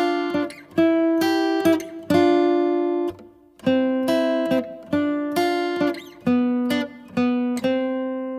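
Acoustic guitar music: a run of plucked and strummed chords, each one struck sharply and left to ring out.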